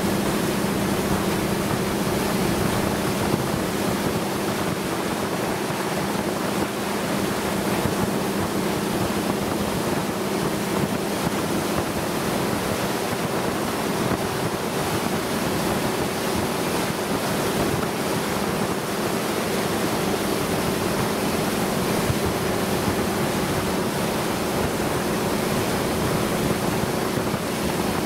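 Motorboat engine running at a steady cruising speed, a constant hum under the rush of water along the hull and wind buffeting the microphone.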